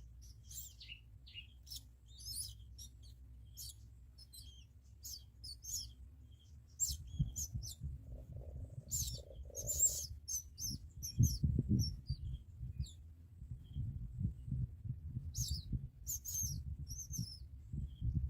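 Small birds chirping, many short high chirps scattered throughout, over a low rumble that grows louder about halfway through.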